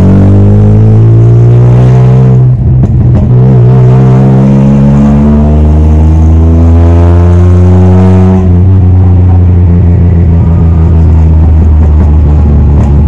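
Suzuki Khyber's 1.0-litre three-cylinder engine through a freshly fitted straight-pipe exhaust, heard from inside the car as it accelerates. The note rises, breaks for a gear change about two and a half seconds in, and rises again. About eight and a half seconds in it drops off to a lower drone with irregular crackling pops.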